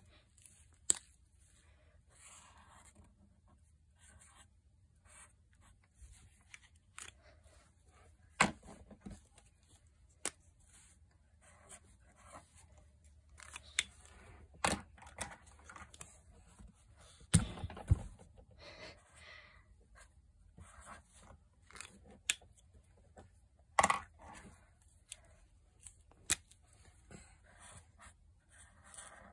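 Felt-tip markers writing on sketchbook paper: soft, scratchy strokes of the tips across the page. Between them come a dozen or so sharp clicks and knocks as the markers are handled, uncapped and recapped.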